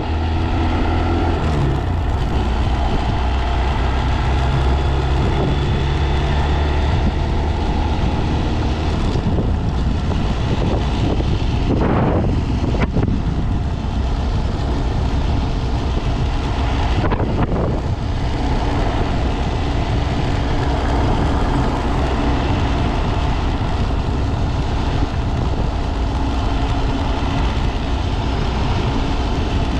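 Honda Z125 Monkey's single-cylinder engine running under way, its pitch shifting a few times, with heavy wind noise rushing over the microphone.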